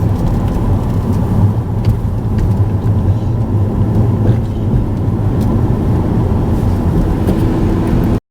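Steady road and engine noise of a car driving, heard from inside the cabin, with a low even rumble. The sound drops out abruptly for an instant at the very end.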